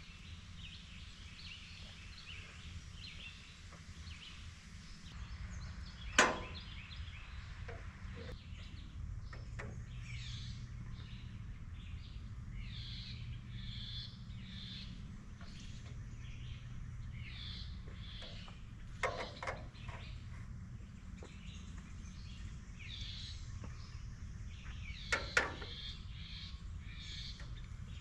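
Outdoor ambience: birds chirping repeatedly over a low steady rumble, broken by a few sharp knocks, one about six seconds in, then a double knock around two-thirds through and another near the end.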